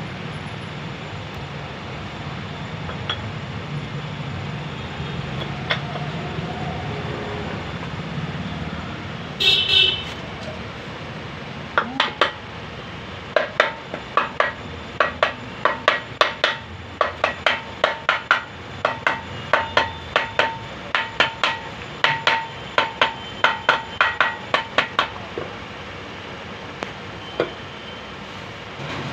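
Metal struck on metal while a Piaggio auto-rickshaw engine's crankshaft is being set in its crankcase: a run of sharp taps, each with a short metallic ring, two or three a second, starting about twelve seconds in and stopping near twenty-five seconds. A short horn toot sounds about ten seconds in.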